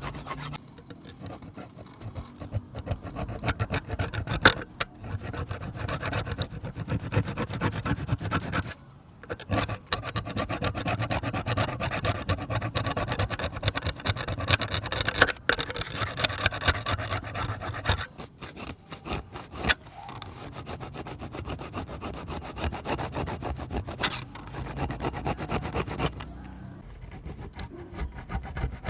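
Hand abrading the old knife: quick back-and-forth rubbing strokes of an abrasive, with a few short pauses between runs.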